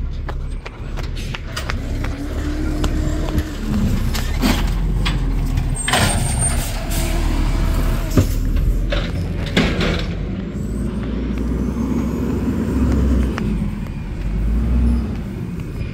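Natural-gas automated side-loading garbage truck working a curbside cart: the engine runs and revs to drive the hydraulic lift arm, with several loud bangs as the cart is lifted, shaken and dumped into the hopper, and a hiss of air.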